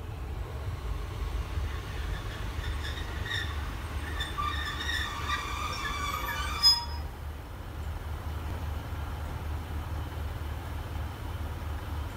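Class 150 Sprinter diesel multiple unit braking into the platform, its brakes squealing in several high tones from about two seconds in, stopping with a short sharp click about halfway through. A low rumble runs underneath.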